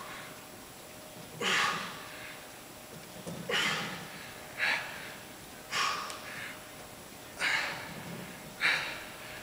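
A man breathing hard from exertion while holding a side plank, with about six loud breaths spaced one to two seconds apart.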